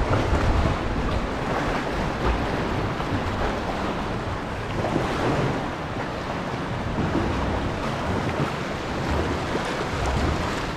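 Sea water lapping and splashing around a paddled sea kayak, with wind rumbling on the microphone.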